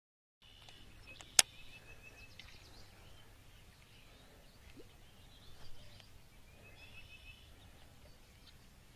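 Birds chirping and trilling over faint outdoor ambience, starting after a moment of silence, with one sharp click about a second and a half in.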